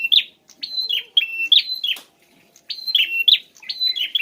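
Prenjak (prinia) singing: quick runs of high, sharp chirps, each note dropping in pitch, repeated several times a second in bursts with a short pause about halfway through.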